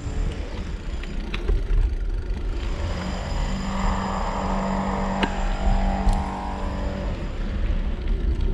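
A car passing by, its engine and tyre noise swelling in the middle and fading near the end, over a steady low rumble.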